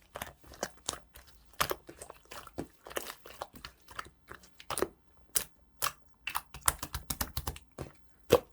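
Orange opaque slime being squeezed and pressed by hand, giving irregular sharp clicks and pops of trapped air, the loudest one near the end.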